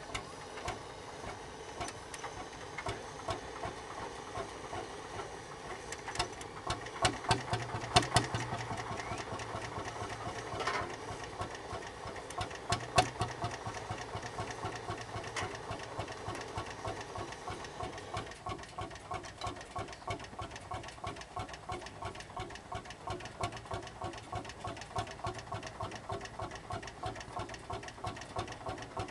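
Lanz Bulldog 25 PS single-cylinder hot-bulb two-stroke tractor engine, just started, running with a rapid knock. It fires unevenly with some louder knocks for several seconds before settling into a steady idle.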